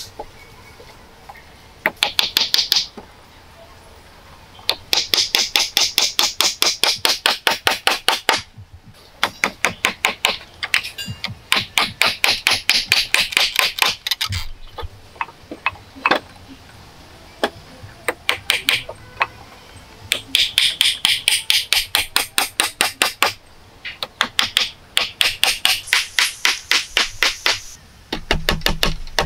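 Small hatchet chopping at a wooden pole in quick, light strokes, several a second, in runs of one to three seconds with short pauses between.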